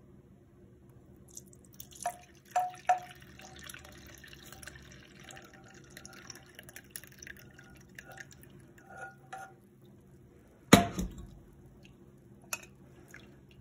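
Hot milk curdled with vinegar being poured through a wire mesh strainer into a glass measuring cup: the whey trickles and drips through while the casein curds collect in the mesh, with a few light clinks. A single loud knock comes near the end.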